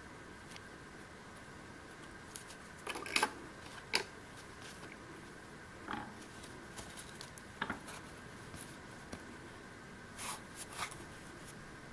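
Scattered small clicks and taps, about half a dozen, of hands working with sheet craft foam and scissors on a wooden block, over a faint steady hum.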